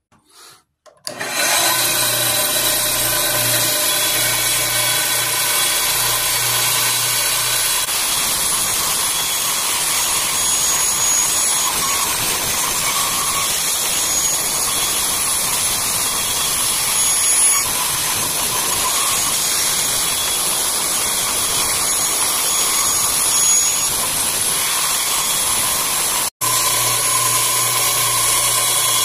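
A Delta bandsaw runs steadily while a wooden bow stave is fed through the blade to cut the limb taper. The sound drops out for an instant near the end.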